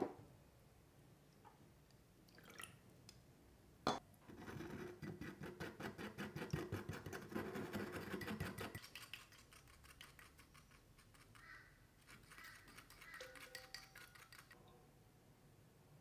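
Small coil whisk clinking rapidly against a ceramic bowl as it stirs potato starch into a thin soy-based sauce, with a sharp knock at the start and another just before four seconds in. The whisking is loudest from about four seconds in until nearly nine, then goes on lighter and fainter.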